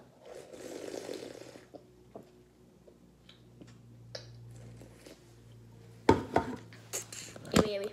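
A person drinking soda from an aluminium can, with soft slurping and swallowing for the first second or two. Sharp knocks follow about six seconds in and again near the end, as things are set down on the kitchen counter.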